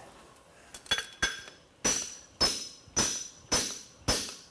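Farrier's hammer striking a hot steel horseshoe bar on an anvil: two light taps, then steady blows about every half second, each leaving a brief high metallic ring.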